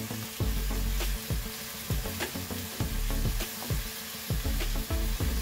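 Cubed pork belly sizzling as it fries in oil in a non-stick wok, with a wooden spatula stirring and turning the pieces. The pork is being browned.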